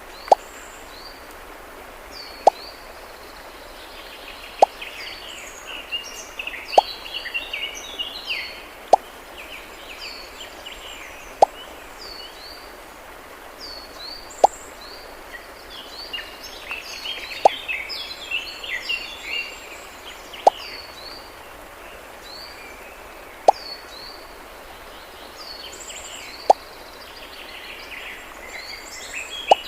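Birds chirping continuously, with a short sharp plop or knock sounding about every two to three seconds.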